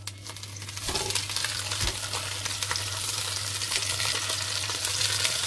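Raw sausages sizzling and crackling in hot oil in a frying pan as they are laid in, the sizzle building about a second in and then holding steady, over a steady low hum.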